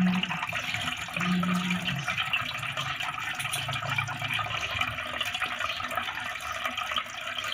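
Liquid pouring steadily: settled mulberry juice being decanted from one pot into another, with the mud and sand left behind at the bottom.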